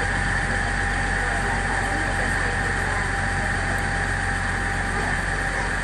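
Passenger riverboat's engine running steadily under way: an even low drone with a thin whine over it.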